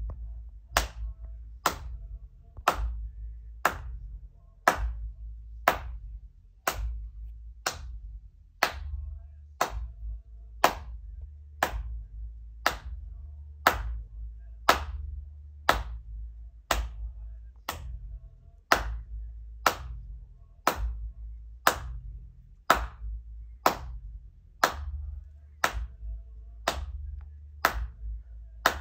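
One person clapping hands steadily in time, about one clap a second, close to a studio microphone. It is a handclap part being recorded for a song, over a faint low rumble.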